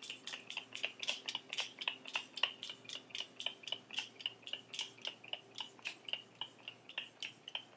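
Fine-mist pump bottle of e.l.f. Power Grip Dewy Setting Spray being sprayed rapidly again and again, about four or five quick click-and-hiss sprays a second.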